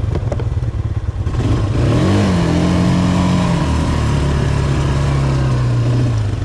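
Quad bike (ATV) engine revving up about two seconds in and holding a higher steady note, then easing back to a lower steady run about a second and a half later, with a rushing hiss over it.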